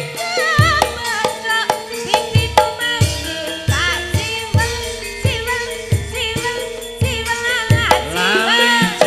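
Javanese gamelan music: a woman sings a wavering, ornamented melody over regular drum strokes that drop in pitch, about one or two a second, with the gamelan's sustained metal tones beneath.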